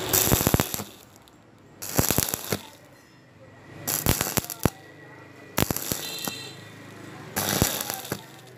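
Stick (arc) welding on a thin steel pipe: the electrode's arc crackles and spits in five short bursts of under a second, about every one and a half to two seconds, as the arc is struck and broken again and again.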